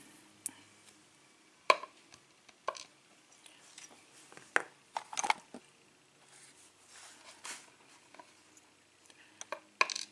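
Scattered small metallic clicks and taps of lock pins and the brass cylinder plug being handled and set down in a pin tray, with a quick run of clicks near the end.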